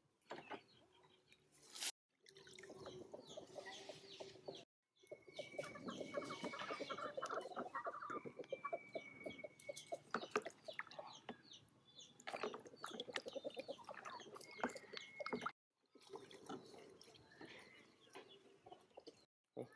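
Chickens clucking, with rapid runs of clucks and short calls, in several stretches that cut off abruptly.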